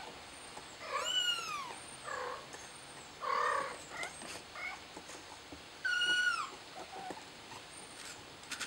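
Kitten meowing for help: three loud, high-pitched meows that rise and fall, about a second, three and a half and six seconds in, with softer short mews between.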